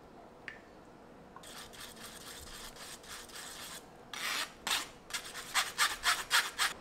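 A metal spoon scraping and rubbing beaten egg through a stainless-steel mesh sieve: faint strokes at first, then louder, quicker scraping strokes, about three a second, from a little past the middle.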